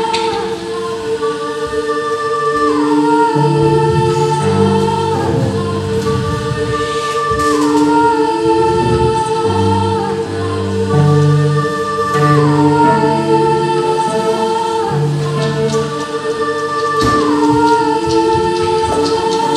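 Music with singing: one note held throughout like a drone, a melodic phrase that slides down in pitch about every four to five seconds, and low notes shifting underneath.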